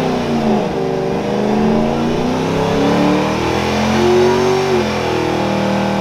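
Ford Mustang GT's V8 engine revving hard during a burnout, its pitch rising and falling as the throttle is worked, with the rear tyres spinning in smoke. About four seconds in, it holds a steady high note briefly.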